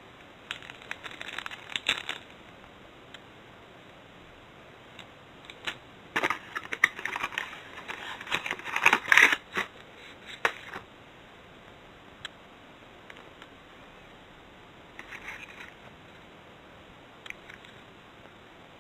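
Clear plastic packaging bag crinkling and rustling in the hands, with light handling clicks of cardboard and small parts, in scattered bursts with quiet gaps between; the longest, loudest stretch falls in the middle.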